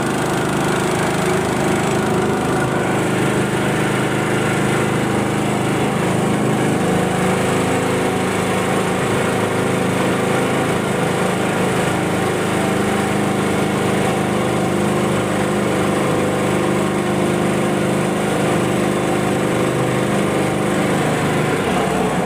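Small outboard motor running steadily, driving an aluminium boat along at cruising speed.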